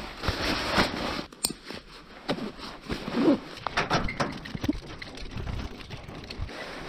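Climbing rope and metal rigging hardware being handled: scattered clicks and clinks with rustling, and one short low sound about three seconds in.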